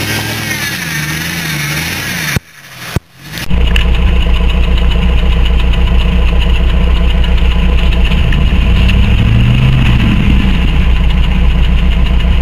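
Off-road vehicle engine revving up and down, then a break of about a second broken by two clicks, after which a louder, steady low engine note takes over and rises and falls once more near the end.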